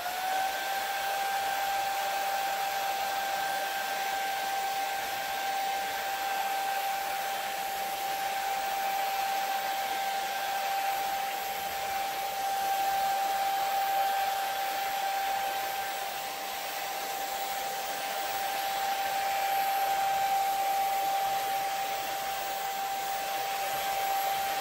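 Handheld hair dryer switched on and running on its low setting: a steady rush of air with a motor hum that rises briefly in pitch as it spins up, then holds steady.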